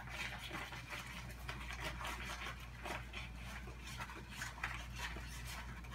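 Soft rustling of a stack of paper bills being handled, with faint scattered ticks.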